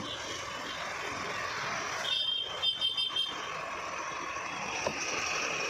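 Steady roadside traffic noise, with a high-pitched tone lasting about a second, about two seconds in.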